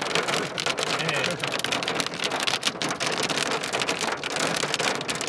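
Hail, with rain, pelting a car's roof, bonnet and windscreen, heard from inside the car: a dense, unbroken patter of many small hits.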